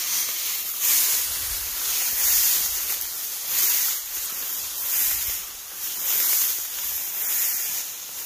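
Tall dry grass swishing and rustling against legs and clothing with each step of people walking through it, a swish about every second over soft footfalls.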